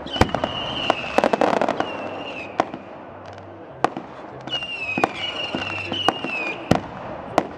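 Fireworks display: shells and fountains going off in sharp bangs at irregular intervals, about ten in all, with a high whistling tone that comes and goes between them.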